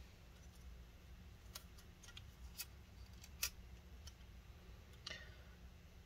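Faint, sharp clicks, about three of them a second or so apart, from the thin metal shield plate being pressed and lined up on an iPhone 6S Plus display assembly; otherwise near silence.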